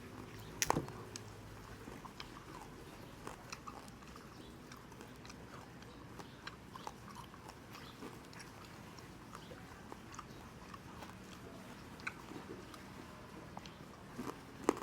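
Biting and chewing crispy pata (deep-fried pork knuckle) close to the microphone: irregular crunches and crackles of the fried skin with wet mouth clicks, the loudest crunch about a second in.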